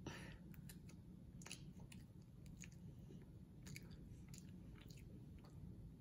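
Faint chewing of a soft mouthful of tiramisu cake by a child, with small wet mouth clicks scattered through.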